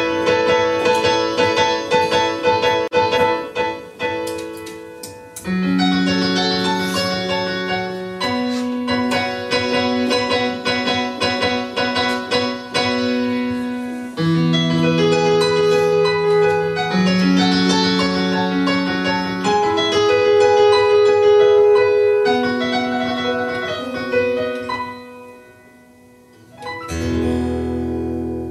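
Digital piano playing a slow instrumental outro of sustained chords and melody notes. The sound dies away near the end, then one last low chord is struck.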